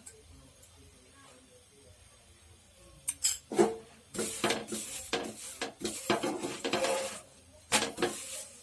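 Metal kitchen utensils clinking and scraping against a pan while a radish chapati is cooked on it. It starts about three seconds in with a few sharp clinks, then runs as quick, dense stretches of scraping and clatter until near the end.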